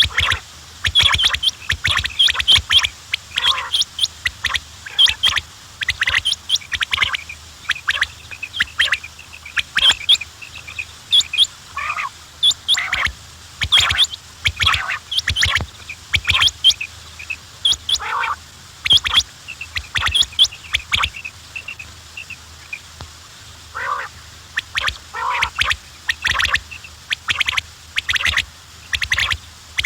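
Quails calling over and over in short, sharp, overlapping notes, with a few lower calls mixed in and a brief lull about two-thirds of the way through.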